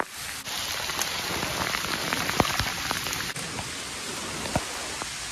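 Heavy rain coming down on forest foliage and ground, a steady hiss with many sharp individual drop hits close by.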